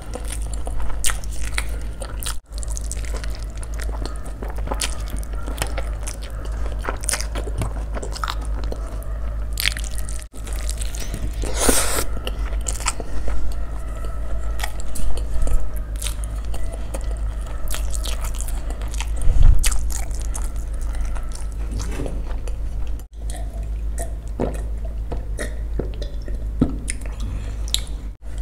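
Close-miked eating: a person biting and chewing rice paper rolls stuffed with noodles and dipped in sauce, with many short sharp mouth clicks. A steady low hum sits underneath.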